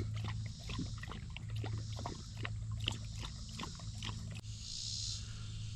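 Many quick, irregular clicks and light knocks over a steady low hum, with a short high buzz near the end.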